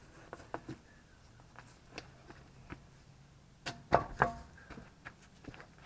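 A car's road wheel being handled and fitted back onto the front hub: scattered light clicks and knocks, with two louder ringing metallic clunks about four seconds in as the wheel goes onto the hub.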